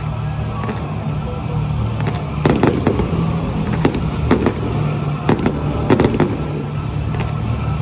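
Fireworks bursting: a string of sharp bangs, coming thick from about two and a half seconds in, over steady background music.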